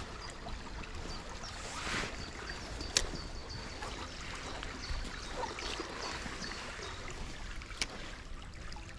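Running water of a fast-flowing, swollen river, a steady rushing noise, with two sharp clicks, one about three seconds in and one near the end.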